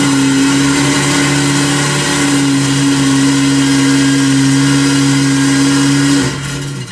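Off-road truck's motor running hard at one steady, unchanging pitch under load, dropping off about six seconds in.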